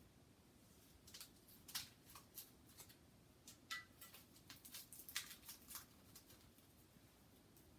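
Faint snips and scratchy rustles of scissors cutting and pulling away a scooter's packaging wrap, a string of short clicks between about one and six seconds in.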